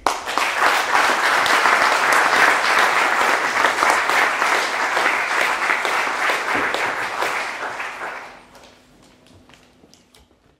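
An audience applauding, dying away after about eight seconds to a few last scattered claps.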